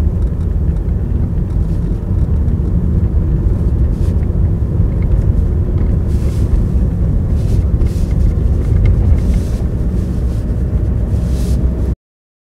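Car driving on a paved road, heard from inside the cabin: a steady low rumble of engine and tyre noise. It cuts off suddenly near the end.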